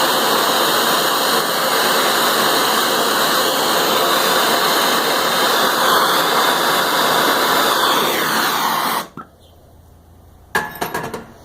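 Soldering torch flame hissing steadily, heating silver to solder on extra metal. The hiss cuts off suddenly about nine seconds in, followed by a few light knocks near the end.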